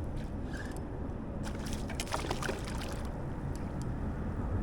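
Water sloshing around a small boat over a steady low rumble, with a cluster of short, sharp splashing or clicking sounds between about one and a half and three seconds in.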